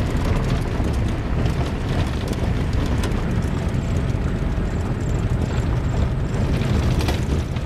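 Vehicle on the move: a steady low rumble with frequent rattling knocks and wind buffeting the microphone.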